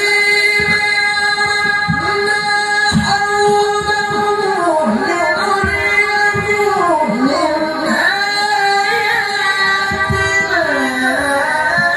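Melodic Quran recitation (tilawah) by a male qari, amplified through a handheld microphone: one high voice in a single unbroken phrase, holding long notes and ornamenting them with falling melismatic runs a few times, mostly in the second half.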